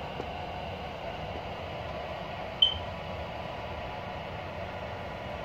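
MTH O-gauge model subway train running on the layout track, a steady whirring hum, with one short, sharp high beep about halfway through.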